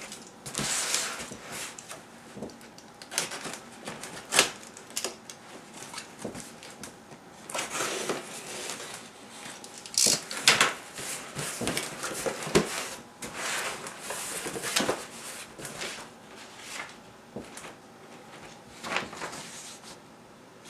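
Cardboard shipping box being opened by hand: the sealing tape worked at with a tool, the flaps pulled back and a paper sheet handled. It is a run of irregular scrapes, knocks and rustles.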